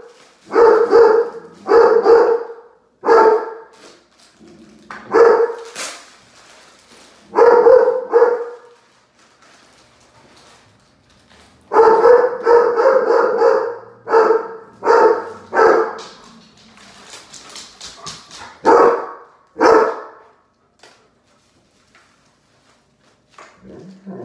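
A dog barking loudly in repeated bouts of sharp barks, with pauses of a few seconds between bouts; the barking stops about twenty seconds in.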